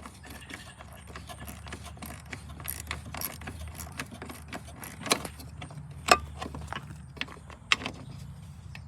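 A small ratchet clicking as it drives in the screws holding a headlight assembly: a run of quick light clicks, with three sharper, louder clicks in the second half.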